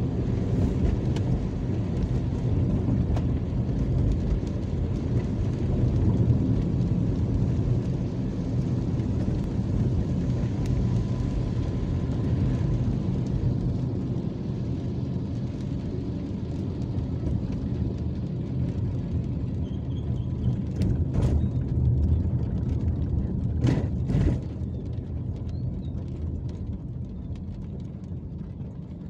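Steady low rumble of a vehicle travelling on a wet road: engine, tyre and wind noise together, easing off near the end as traffic comes to a stop. A few sharp knocks come about three-quarters of the way through.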